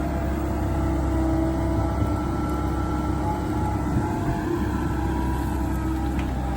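Komatsu PC130 hydraulic excavator's diesel engine running steadily, with a steady whine above the low rumble.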